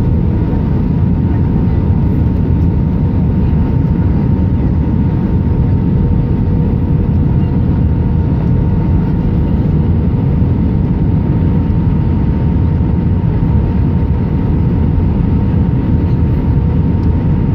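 Cabin noise of an Airbus A319-132 on approach, heard from a window seat behind the wing: a steady low rumble of airflow and its IAE V2500 turbofans, with a faint steady hum on top.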